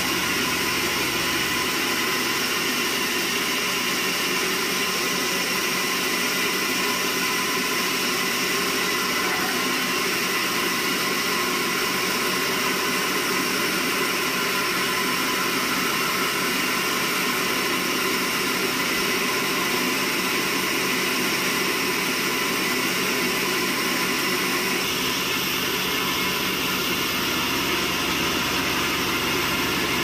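Horizontal band sawmill running steadily, its blade cutting lengthwise through a squared log of yellow resin wood.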